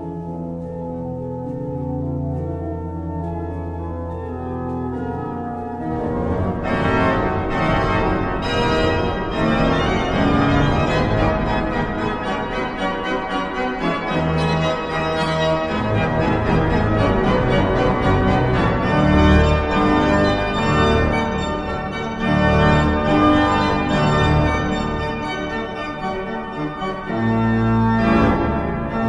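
Large pipe organ played: soft sustained chords over a held low pedal note, then, about six seconds in, a louder, fuller passage of fast running notes over the pedal.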